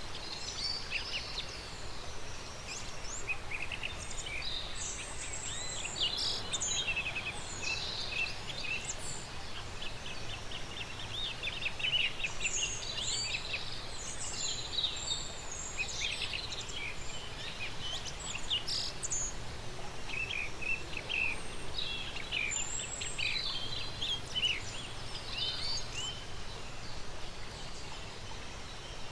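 Birds chirping and singing, many short calls following one another over a constant background hiss.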